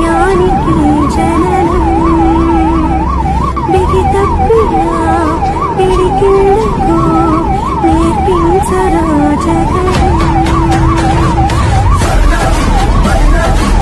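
Ambulance siren sounding in a fast warble, its pitch rising and falling about three times a second without a break, over the low rumble of the moving vehicle.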